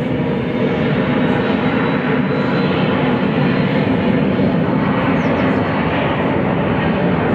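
Jet aircraft engines running loud and steady at takeoff power, rising slightly in level at the start.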